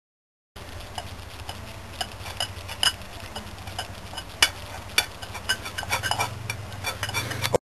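A metal spoon scraping and knocking against a saucepan as the melted sugar and potassium nitrate mixture is scraped out, giving irregular clicks and taps over a low steady hum. It starts about half a second in and cuts off suddenly near the end.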